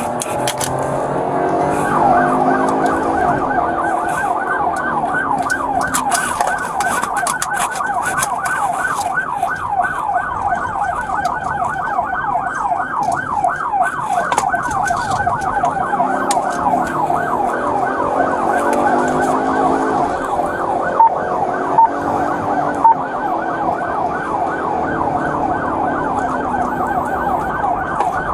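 Police car's electronic siren on a rapid yelp, heard from inside the patrol car's cabin while it is being driven on an emergency run. Three short beeps sound a little after 21 seconds in.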